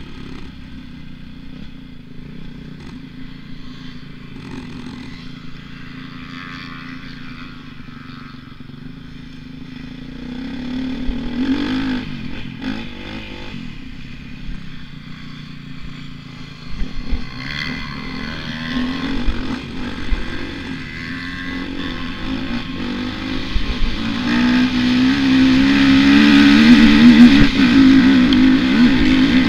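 Dirt bike engine running under throttle, revving up and down as the rider works along the track. It grows louder from about three quarters of the way through, under load as the bike climbs a steep dirt hill.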